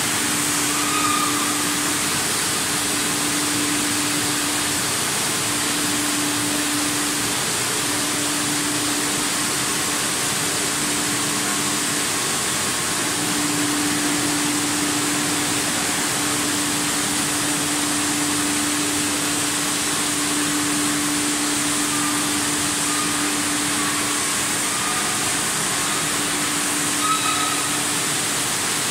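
Water bottling line running: a steady machine noise of conveyors and motors, with a low hum that breaks off and returns every few seconds.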